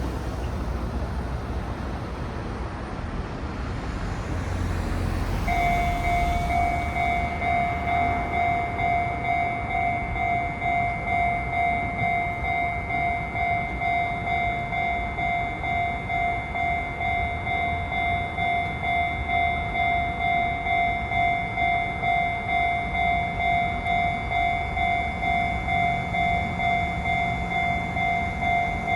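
Japanese railroad crossing's electronic warning bell starting about five seconds in and then ringing on in an even, repeating kan-kan, just under two strokes a second, over a low background rumble.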